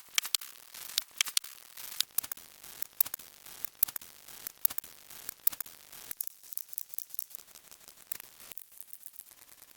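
A rapid, irregular series of sharp clicks and crackles, growing sparser and quieter after about six seconds.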